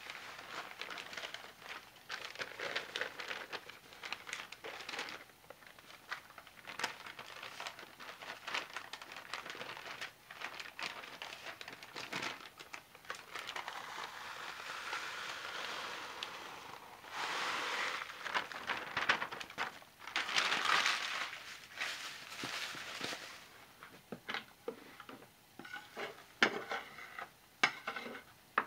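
A bag crinkling as crumbled old salt-bar soap is poured from it into a crock pot of fresh soap batter, the pieces falling in long pours with many small clicks and rustles. Scattered taps come near the end.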